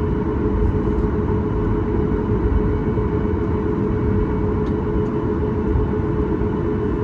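Cabin noise of a Boeing 737 MAX 8 in flight: its CFM LEAP-1B engines and the airflow make a steady, loud drone with a constant hum on top.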